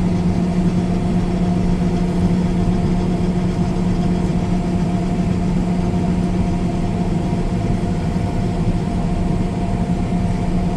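A heavy farm machine's diesel engine running steadily at constant speed: an even, unchanging hum.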